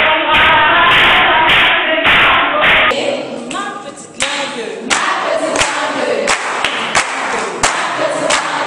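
A group of people singing together and clapping their hands to a steady beat, about two claps a second. About three seconds in, the sound cuts to another stretch of group singing and clapping, which dips briefly before the claps pick up again.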